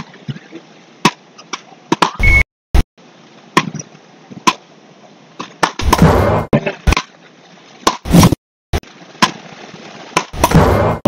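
Beach rackets hitting a ball back and forth in a fast rally, a sharp crack every half second to a second. There are two longer, louder rushes of noise about six and ten seconds in.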